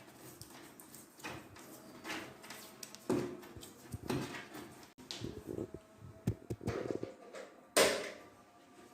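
Irregular clicks, knocks and scrapes of hands and tools working on a semi-automatic washing machine's timer panel while its old wash timer is taken out and a new one fitted. The loudest knock comes near the end.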